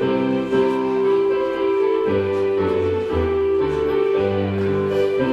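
Keyboard music playing held chords, with a bass line that comes in about two seconds in and moves from note to note.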